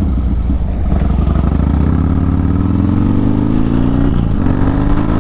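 Harley-Davidson V-twin motorcycle engine pulling away and accelerating, its pitch rising, dropping at a gear change about four seconds in, then rising again.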